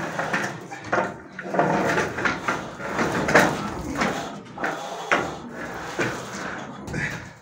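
Long straightedge scraping back and forth over wet gypsum plaster on a ceiling, a rough swish about twice a second, as the fresh plaster is levelled. The scraping fades out near the end.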